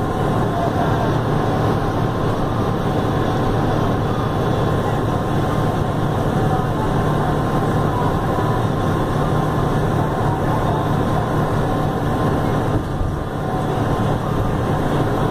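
Cabin noise of a Neobus Mega Plus bus on a Mercedes-Benz OF-1519 BlueTec 5 chassis cruising at highway speed: a steady low diesel engine drone mixed with road and tyre noise, briefly easing near the end.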